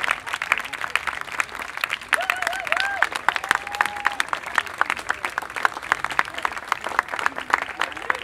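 Audience applauding steadily, many hands clapping at once, with a few cheers from the crowd about two to four seconds in.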